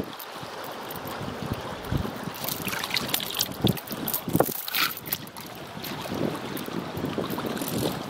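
Wind buffeting the microphone over river water, with splashing and dripping as a steel chain rigged with meat bait is lifted out of the water. A few sharp metal clinks from the chain come in the middle.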